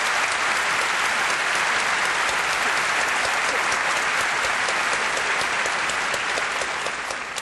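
Audience applauding steadily, beginning to die away near the end.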